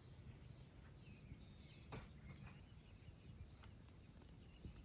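Faint insect chirping: a short, high, pulsed chirp repeating steadily about twice a second, over a low background rumble.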